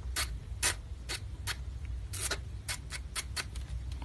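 Short rasping strokes of a small hand file across the cut tip of a surgical stainless steel wire, about two strokes a second and unevenly spaced, smoothing the end so the ear wire won't scratch.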